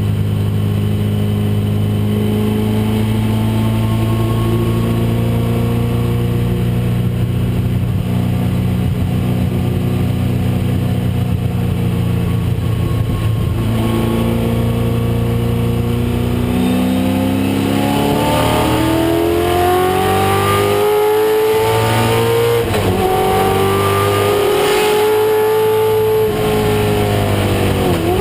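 1996 Ford Mustang race car's engine heard from the cockpit, running at steady revs at first. From about two-thirds of the way through it revs up repeatedly, the pitch climbing and dropping back at each gear change.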